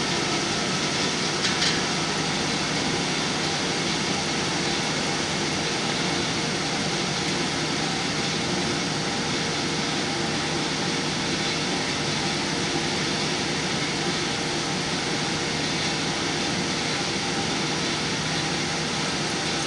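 Steady ventilation or air-conditioning noise: a constant even hiss with a faint hum underneath, and a light click about a second and a half in.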